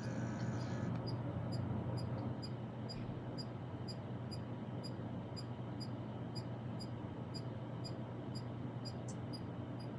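Faint, evenly spaced high-pitched electronic ticks, about two a second, over a low steady hum.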